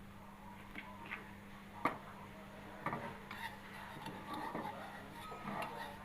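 A few light knocks and clicks of kitchen utensils while flatbread is cooked, over a steady low hum.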